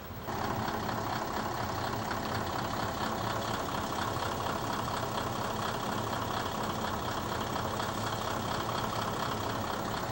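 Diesel engine of a KiHa 22 railcar running steadily as the car moves past close by. The sound cuts in suddenly just after the start.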